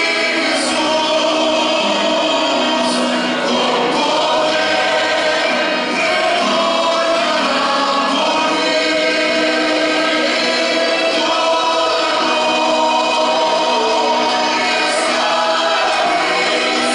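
Large mixed choir of men's and women's voices singing a Spanish-language hymn in full, sustained chords at a steady level, with a few crisp sung "s" sounds at the start, about three seconds in and near the end.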